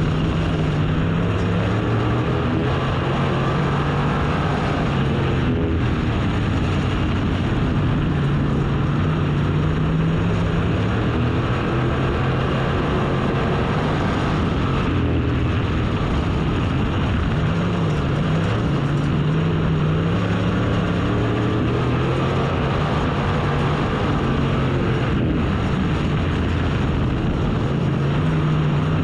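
Race car engine running hard on the track, its pitch rising and falling, with a brief dip about every ten seconds.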